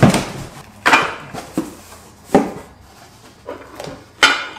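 Cardboard packing boxes being handled and pulled open around metal hitch parts, with about six sharp scrapes and knocks.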